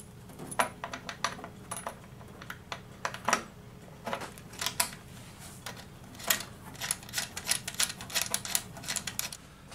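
Irregular clicks and light knocks of a stepper motor's multi-pin round connector being handled, pushed into and fitted onto a panel socket on a CNC motor controller box, in scattered clusters.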